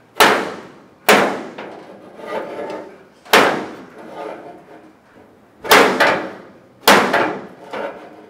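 Hammer blows on the steel body of a 1936 Terraplane coupe: five hard, unevenly spaced strikes with lighter taps between, each ringing briefly like struck sheet metal.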